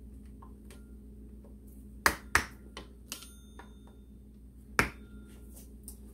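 A few sharp metallic clicks and clinks of hand tools and small steel engine parts being handled, with two loud ones about two seconds in and another near five seconds, some leaving a faint ring.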